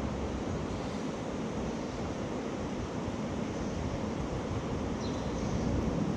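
Steady rushing outdoor noise of wind and sea surf, with a couple of faint high clicks near the end.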